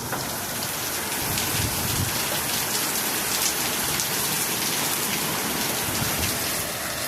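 Heavy rain pouring down and pattering on surfaces: a steady, dense hiss of countless drops.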